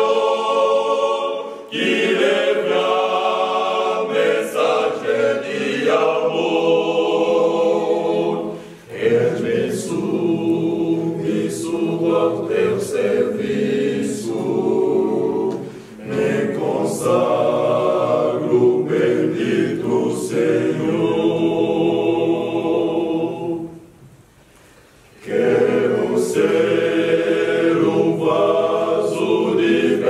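A men's choir singing in harmony, phrase by phrase, with short breaths between lines and a pause of about a second and a half late on.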